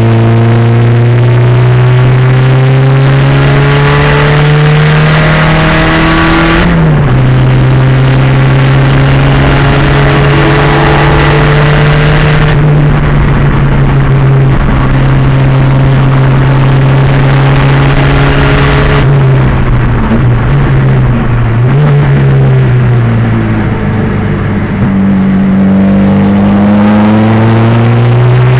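Race-prepared 1987 Pontiac Fiero's 2.0-litre turbo engine at full throttle, loud throughout. Its pitch climbs and then drops sharply with an upshift about seven seconds in. It climbs again and holds high, then falls away as the car slows for a corner about twenty seconds in, and rises once more near the end.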